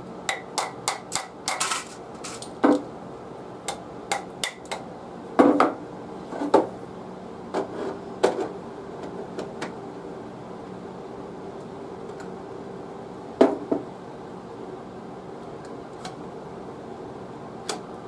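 Sharp clicks and knocks from handling a Lee aluminium shotgun-slug mould at a lead-casting pot, as metal and wood strike metal. There is a quick run of taps in the first two seconds and more knocks over the next several seconds, then two single knocks later on, over a faint steady hum.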